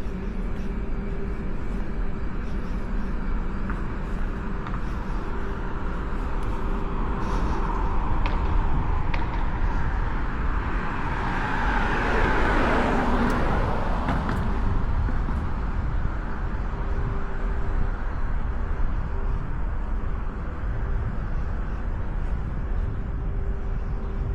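Outdoor traffic ambience with a steady low rumble and a faint steady hum; a vehicle passes about halfway through, swelling and then fading away.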